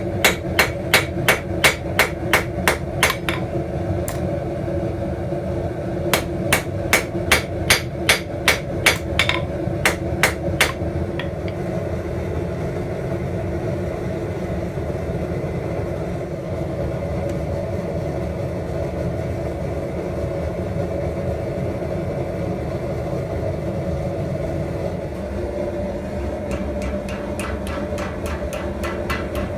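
Hand hammer striking steel on an anvil in quick runs of blows, about four a second: one run at the start and another a few seconds later. Then a steady background hum, with a few light taps near the end.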